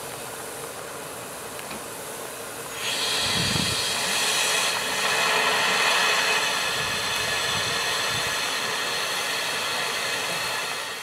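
Narrow-gauge steam locomotives standing in steam, hissing steadily. About three seconds in, a louder rush of escaping steam starts and keeps going.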